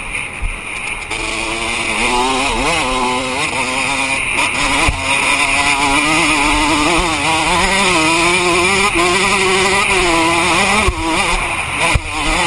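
Dirt bike engine running as it is ridden, its pitch rising and falling with the throttle. Low rumble and buffeting on the helmet-mounted microphone.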